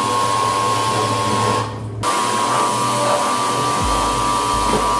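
Pressure washer jet spraying water onto motorcycle plastic fairing parts: a steady, loud hiss that cuts out briefly just before two seconds in, then starts again.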